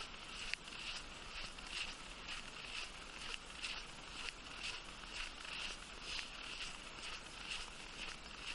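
Footsteps crunching in snow at a brisk, regular walking pace, about three steps a second, with one sharp click about half a second in.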